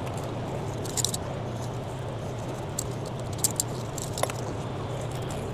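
Several light metallic clinks and rattles from loose stainless steel T-bolt hose clamps as an old rubber intercooler boot is worked off the charge-air pipe, about a second in and twice more near the middle, over a steady low hum.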